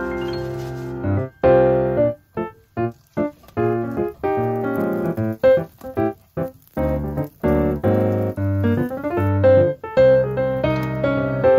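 Background piano music: a light melody over chords, with a run of short, detached notes in the middle.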